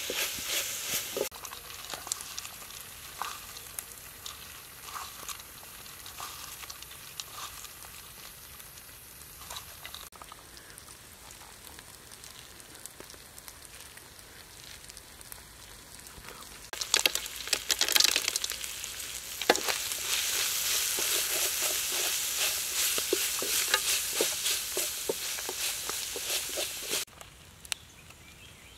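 Minced snake meat and chilies sizzling in a steel wok as they are stir-fried, with the spatula scraping and knocking against the pan. The sizzle is loud at first, dies down for a long stretch, and comes up loud again about halfway through.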